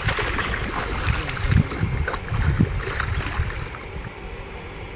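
A hooked fish thrashing and splashing at the water's surface close to the bank, in irregular bursts that are strongest in the first three seconds and die down toward the end.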